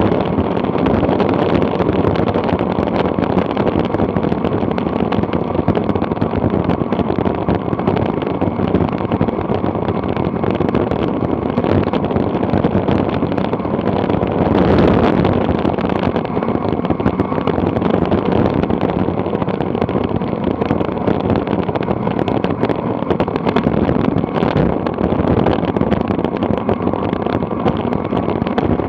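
Wind rushing over a bike-mounted camera's microphone during a fast road-bike descent: a loud, steady, rough rush with constant crackle, swelling briefly about halfway through.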